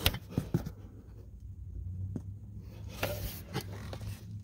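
Light rubbing and scraping with a few soft clicks, as a hand and camera are worked down among corrugated plastic wire looms in an engine bay, over a low steady hum.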